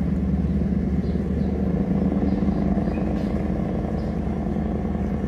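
Twin 800 hp Scania V8 diesel engines of a river passenger launch running under way, a steady low drone that grows slowly fainter as the boat pulls away.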